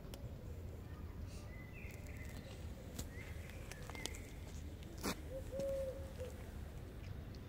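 Outdoor ambience: a steady low rumble with a few faint bird chirps, scattered sharp clicks, and a short steady hoot-like call just after the loudest click, about two-thirds of the way in.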